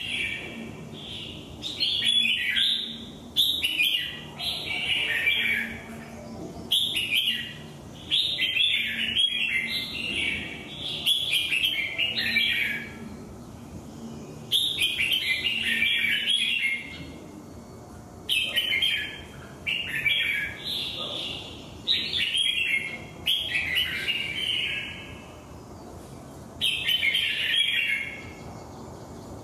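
Caged red-whiskered bulbul singing: loud, rapid warbling phrases, one after another with short pauses between them.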